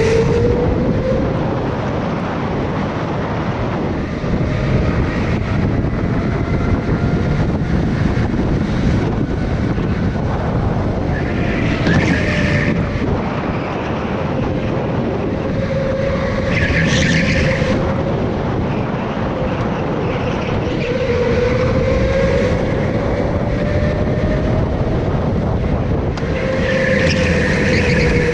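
Go-kart at speed on a track, heard from on board: a steady motor drone whose pitch rises and falls as the kart speeds up and slows for corners, with short high squeals about twelve and seventeen seconds in and again near the end.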